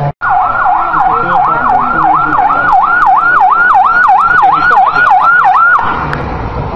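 Electronic siren on a car with a roof light bar, a fast up-and-down yelp of about three sweeps a second that stops shortly before the end.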